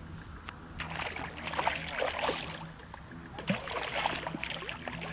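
A hooked crucian carp thrashing and splashing at the water's surface close to the bank as it is played on the rod, in two bouts of splashing.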